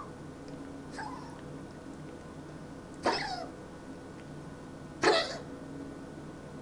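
A pet coughing in short, harsh bursts about every two seconds: a faint one about a second in, then two louder ones.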